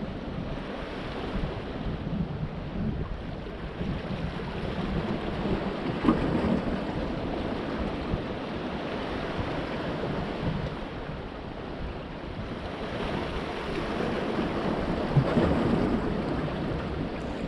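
Sea waves washing in and breaking against the large stones of a rock breakwater, with wind noise on the microphone. The surf swells up about six seconds in and again near the end, with a few sharp splashes.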